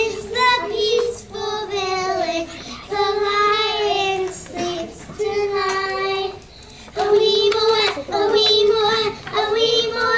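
Young children singing a song together on one melody line, in phrases of held notes with short breaks between them.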